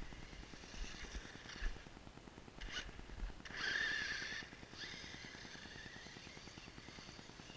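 Traxxas Slash RC car's electric motor whining as it speeds up and slows down, loudest in a burst of acceleration about halfway through.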